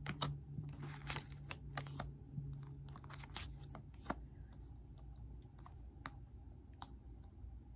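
Tarot cards being handled: cards slid, picked up and laid down on one another, making crisp snaps and rustles that come thick over the first four seconds, then a few scattered taps.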